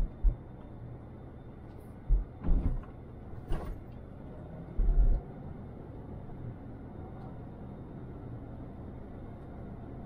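A car driving, heard from a dash camera: a steady low rumble of road noise, with several sudden low thumps in the first half of the clip, one of them with a sharp click or rattle.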